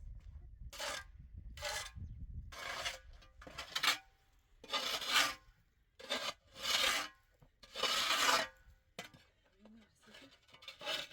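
A series of about eight rough scraping strokes, each under a second long, coming at uneven intervals and stopping near the end.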